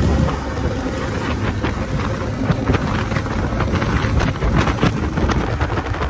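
Wind buffeting the microphone over a dense, crackling rush of water spray, as when riding in an open motorboat, with a low rumble underneath.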